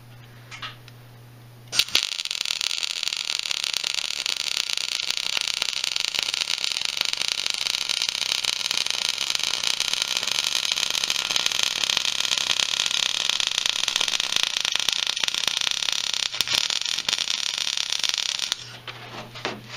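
MIG welder arc crackling steadily as a bead is laid on a master cylinder bracket. It starts abruptly about two seconds in, dips briefly once, and stops shortly before the end.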